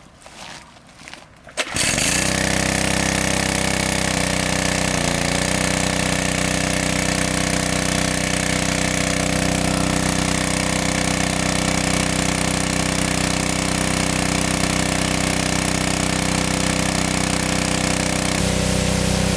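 A small engine comes on suddenly about two seconds in and runs at a steady, constant speed, its tone shifting slightly around five seconds and again near the end.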